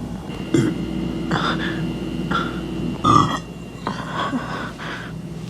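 A person burping several times: a long, drawn-out burp starting about half a second in, then a louder, shorter one about three seconds in.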